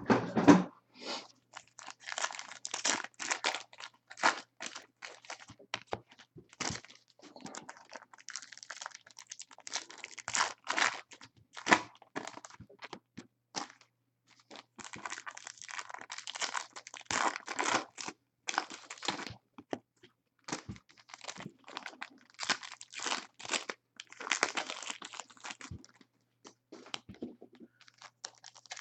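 Trading-card pack wrappers being torn open and crumpled: repeated irregular rips and crinkles as packs of 2014 Bowman Chrome cards are opened one after another.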